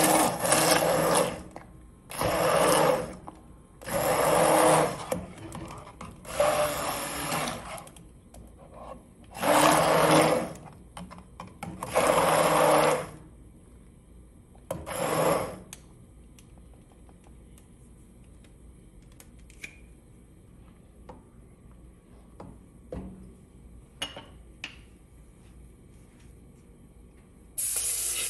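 Hand-held immersion blender puréeing a pot of boiled lentils, switched on in about seven short bursts of one to two seconds each. Near the end a kitchen tap starts running.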